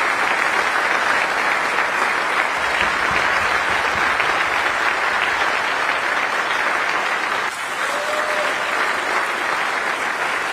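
Large conference audience applauding steadily, a dense clapping that dips slightly in loudness about seven and a half seconds in.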